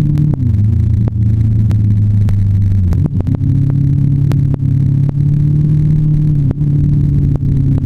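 Motorcycle engine running under way, heard from a camera mounted on the bike: its note falls just after the start, rises about three seconds in and holds steady, then drops again near the end. Frequent sharp ticks run over it.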